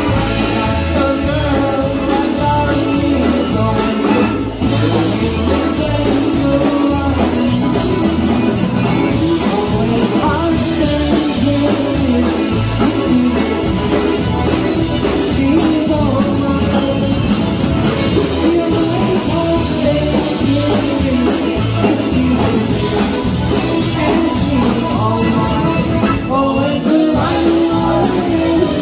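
Live polka band playing a polka on concertinas, trumpet, saxophone, clarinet, bass guitar and drums, with a steady bouncing beat. A voice joins in singing near the end.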